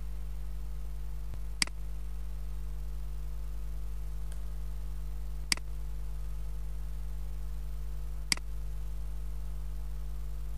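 Three sharp computer-mouse clicks a few seconds apart, over a steady low electrical hum.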